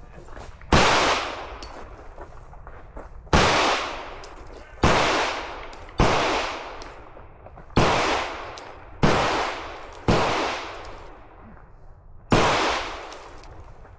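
Eight gunshots fired at an uneven pace, one to two and a half seconds apart. Each shot is followed by a reverberant tail that dies away over about a second.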